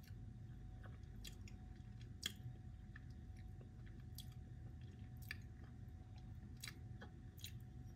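Faint close-up chewing of a soft, gummy ice-cream sweet with a jelly-like coating, heard as scattered, irregular little wet mouth clicks.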